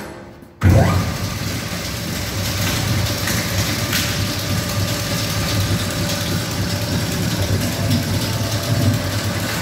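ARP EZ 100 single-shaft shredder starting up: its drive comes on with a sudden jump in level about half a second in, then runs steadily with a low hum.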